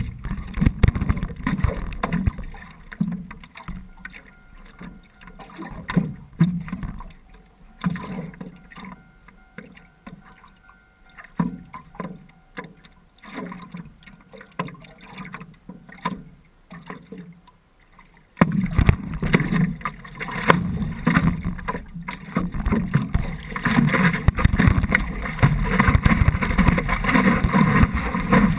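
Sea water sloshing and splashing against the nose of a surfboard-type board, picked up by a camera mounted on the board, in uneven surges every second or two. About two-thirds of the way in it turns suddenly into a much louder, continuous rush of water against the board.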